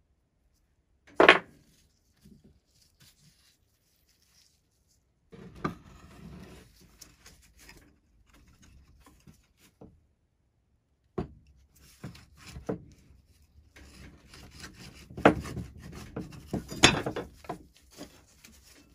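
Rusty steel pulley block and hook being handled and taken apart on a wooden workbench: metal parts knocking and clanking against the wood, with scraping and rubbing. A sharp knock comes about a second in, then a stretch of scraping, then a busier run of knocks and clanks near the end.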